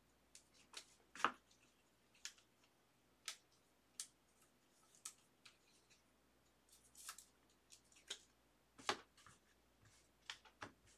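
Faint, irregular clicks and brief rustles of chrome baseball cards being handled and flipped through by hand, with a sharper click about a second in and another late on.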